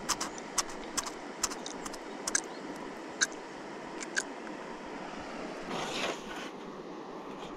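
Scattered sharp clicks and scrapes of handling, as a freshly caught roach and the fishing tackle are dealt with, over a steady rushing background. There is a brief louder rustle about six seconds in.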